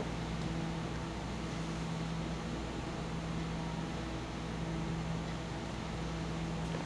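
Room tone: a steady low hum with an even hiss, like a fan or ventilation, and no other sound. A small click comes right at the start.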